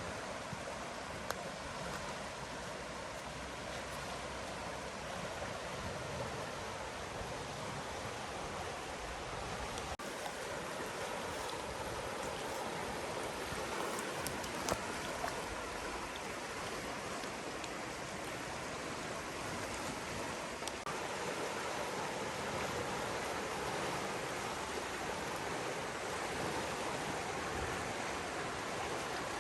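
River water flowing in a steady, even rush, with a few faint ticks.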